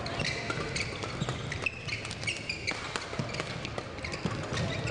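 Badminton rally: players' court shoes squeaking and thumping on the court surface, with sharp racket strikes on the shuttlecock.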